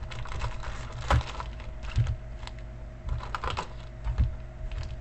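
Irregular light clicks and taps, a few each second, with sharper knocks about one, two, three and a half and four seconds in.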